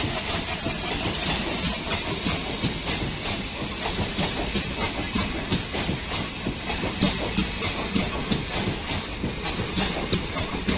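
Train rolling past on the track, wheels clattering steadily over rail joints, with a steady hiss of rain.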